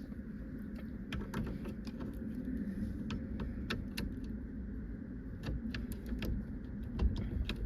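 Light metallic clicks and rattles, irregular and scattered throughout, as a key and a new ignition lock cylinder are worked into a car's steering column, over a steady low hum.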